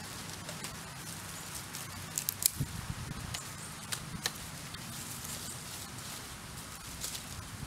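Dry sticks and leaf litter crackling and snapping as they are picked up and handled by hand, with a few sharp snaps about two and a half seconds in, over a faint steady low hum.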